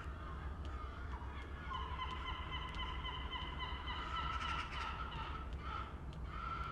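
Gulls calling: drawn-out, wavering cries through the middle, then a run of short repeated calls near the end, over a low steady rumble.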